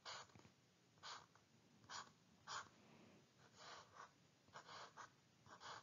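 Near silence: room tone with a few faint, brief soft sounds scattered through it.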